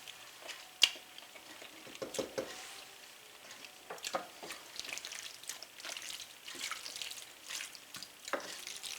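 Skillet of ground beef and pasta in tomato sauce simmering on the stove, with soft irregular pops and crackles and a sharp click of a utensil about a second in.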